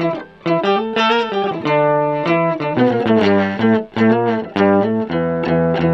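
Electric guitar played through an Electro-Harmonix Micro POG polyphonic octave pedal, with the octave-up voice blended with the dry guitar and the sub octave off. The guitar plays a riff of picked notes and chords, changing about twice a second.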